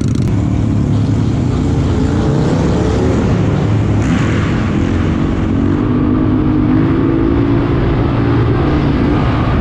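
Red Honda dirt bike's single-cylinder engine running under the rider, its pitch rising and falling with the throttle, with wind rushing over the helmet-mounted microphone. About four seconds in the bike rides into a concrete tunnel, and the sound gets brighter there.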